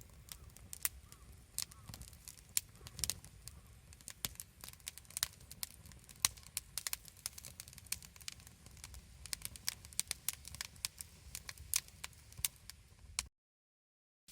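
Campfire wood crackling and popping, with many irregular sharp snaps over a low rumble; it cuts off suddenly near the end.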